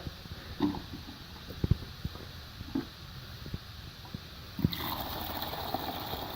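A few light knocks and clunks of a container being handled, then, about three-quarters of the way in, a steady pour of liquid splashing into a bucket of water.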